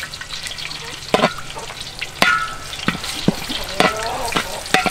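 Metal spatula scraping and clinking against a wok while red curry paste fries in hot oil with a steady sizzle. The strikes come irregularly, roughly every half second to second, and some leave a brief metallic ring.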